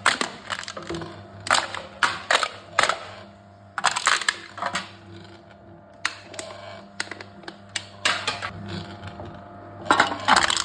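Aluminum cans being crushed in a can-crushing machine: irregular clusters of sharp metallic crackles, crunches and clinks, over a steady low hum.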